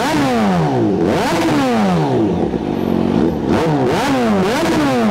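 Kawasaki Z H2's supercharged inline-four revved in several quick throttle blips through a new Orion slip-on exhaust, with the catalytic converter still fitted. Each time the revs climb fast and fall back more slowly to idle; the exhaust is loud.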